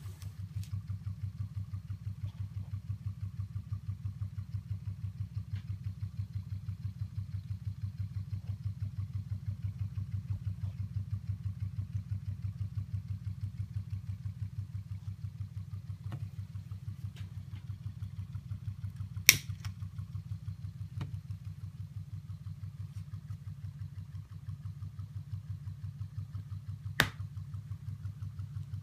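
Model Stirling hot-air engine running steadily, its flywheel and piston giving a fast, even low beat. Two sharp clicks stand out, one about two-thirds of the way through and one near the end.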